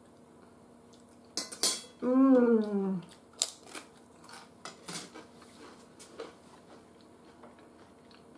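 A person crunching on a crisp baked corn taco shell: a run of short, sharp crunches, with a hummed "mmm" falling in pitch about two seconds in.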